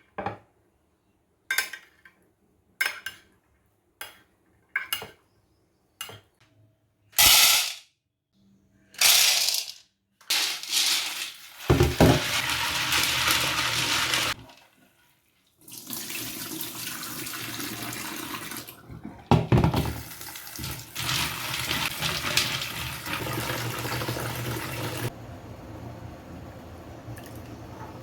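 Several short sounds of handling, one after another, then water running from a kitchen tap, stopping briefly and running on, quieter near the end.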